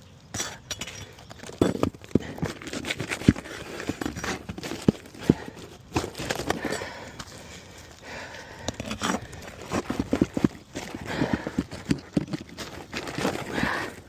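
An asphalt roof shingle being pried and pulled loose: irregular knocks, scrapes and crackling as the well-sealed shingle tears free.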